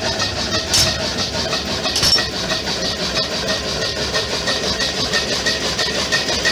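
Homemade Stirling engine generator running steadily on unlubricated PTFE lip seals, an even mechanical beat with each stroke. Two brief sharp clicks about one and two seconds in.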